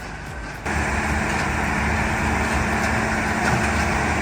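Heavy machinery engine running steadily under load with a constant hum, cutting in abruptly about half a second in.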